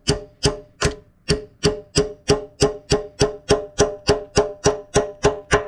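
Hammer tapping a steel pin, with the old key pin braced against it as a drift, driving a keyway pin into an excavator bucket tooth. It is a steady run of metal-on-metal strikes, about three a second, each one ringing briefly.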